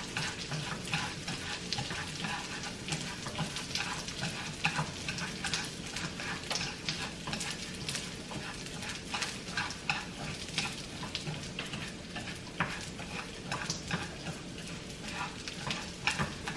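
Raw washed rice toasting in a little oil in a nonstick frying pan, sizzling steadily while a wooden utensil stirs it, with frequent small clicks and scrapes against the pan. This is the dry-toasting step before the rice is cooked into congee.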